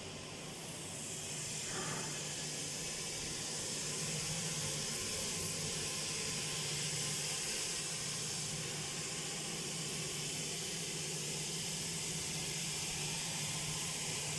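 Stone-cutting machinery running: a steady hiss with a low hum beneath, growing louder over the first two seconds and then holding steady.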